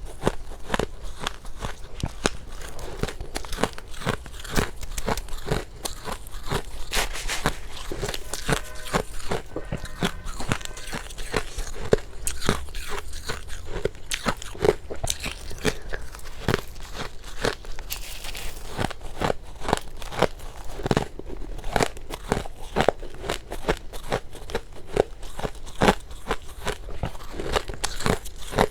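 Close-up crunching of soft, powdery freezer frost being bitten and chewed, a dense run of crisp crackles.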